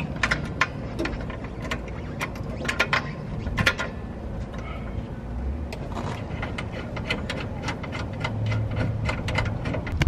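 Hand tools clicking and clanking against car suspension hardware: irregular sharp metallic clicks and knocks as a rear coilover is bolted up, over a low rumble.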